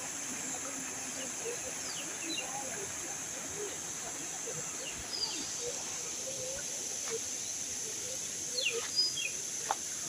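Rural outdoor ambience: a steady high hiss with many short scattered calls and chirps from birds. A few louder, quick downward chirps come near the end.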